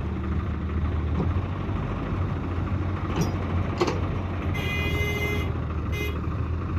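Heavy vehicle diesel engine running steadily. A vehicle horn sounds for about a second a little past the middle, with a short second toot just after.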